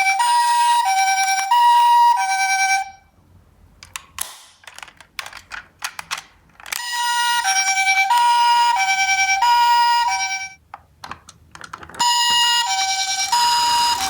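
Electronic two-tone ambulance siren in the Japanese hi-lo pattern, switching between a high and a low tone a few times a second. It plays in three stretches, with light clicks and taps in the pauses between them.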